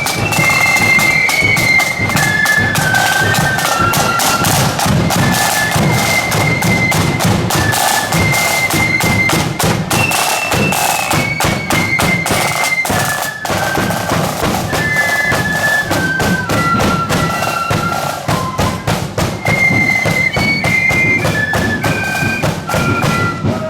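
Marching flute band playing a tune on flutes over a steady drum beat, with snare and bass drums.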